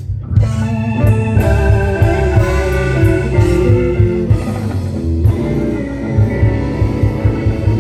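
Live blues-rock band playing an instrumental passage: electric guitar and organ over a steady bass and drum beat.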